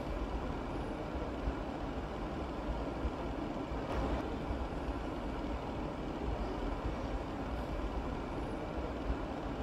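A steady low rumbling background noise, with light irregular taps of a chef's knife slicing cabbage into julienne strips on a plastic cutting board.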